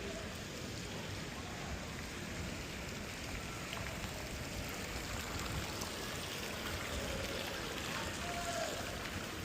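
Steady rain falling, an even hiss of rain without a break.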